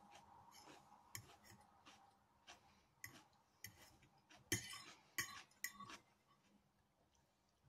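Quiet eating sounds: a metal fork clicking and scraping on a plate amid soft chewing, with a cluster of sharper clicks a little past halfway.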